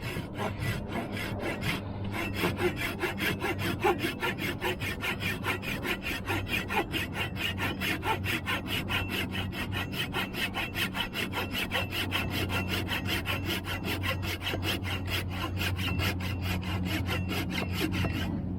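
Japanese mini folding pull saw cutting through a wooden stick with rapid, even strokes, about four a second.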